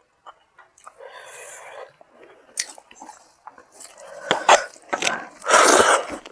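Close-miked eating sounds of a person eating rice and fish curry: chewing and mouth smacking with sharp little clicks, growing louder in the second half, with a longer noisy burst near the end.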